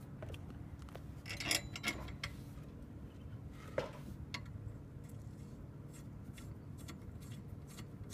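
Light metal clicks and scrapes of steel tubing being handled and pushed together as a drift trike's foot-peg tube is fitted onto the frame, with a cluster of clicks about one and a half seconds in and a single sharper click near four seconds, over a faint low background rumble.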